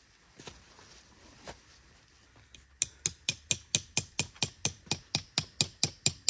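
Tent peg being hammered into the ground: a quick, even run of sharp strikes, about four or five a second, starting about three seconds in, after a few faint clicks.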